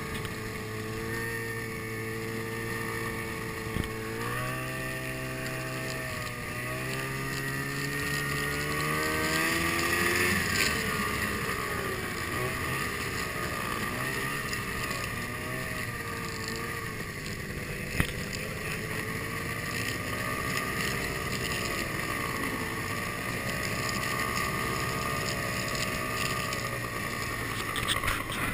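Snowmobile engine running under way on a snow trail, its pitch climbing steadily for several seconds after about four seconds in, then rising and falling with the throttle, over a steady high whine and wind on the microphone. A single sharp knock comes about eighteen seconds in.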